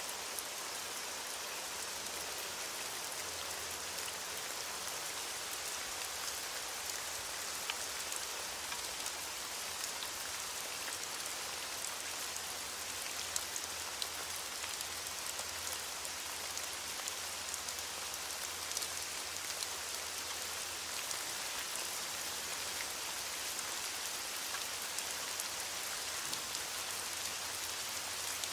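Steady rain falling, an even hiss dotted with the sharp ticks of individual drops hitting a surface.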